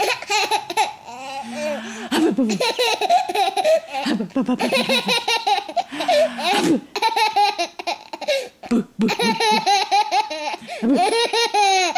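A baby laughing: repeated high-pitched bursts of laughter with short breaks between them.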